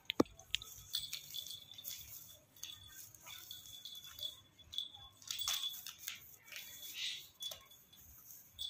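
Light scuffling, scratching and rattling clicks as a baby otter and a kitten wrestle on a woven floor mat, with a sharp click right at the start.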